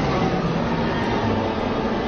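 Several cartoon tyrannosaurs roaring together: a loud, harsh, steady roar.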